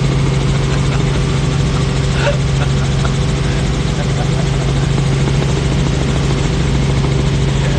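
Helicopter heard from inside the cabin in flight: the engine and rotor make a loud, steady drone with a constant low hum.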